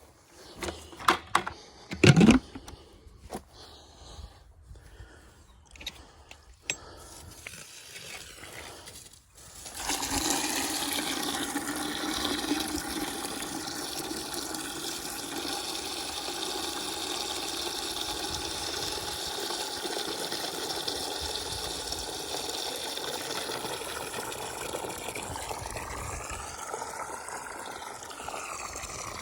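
A few knocks and clatter, then about ten seconds in, water starts running steadily and noisily into a container and keeps filling it.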